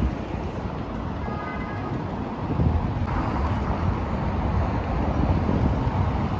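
Steady city traffic noise from passing cars, with wind buffeting the microphone in a low rumble.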